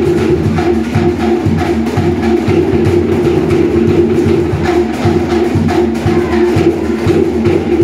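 Cook Islands dance music played loud, driven by a fast, steady beat on wooden slit drums.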